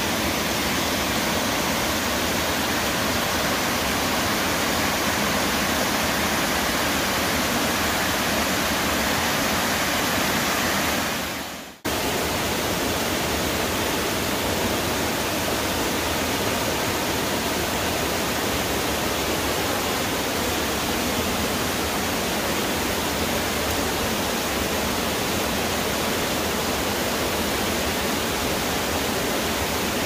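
Steady rushing of water cascading down Indian Creek Falls over sloping rock. It drops out for a moment about twelve seconds in and then comes back at the same level.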